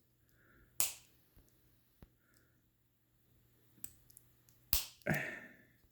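A few sharp clicks and taps from small tools and parts handled on a workbench: one about a second in, one just before five seconds, a few fainter ticks between, and a short scuffing sound right after the second click.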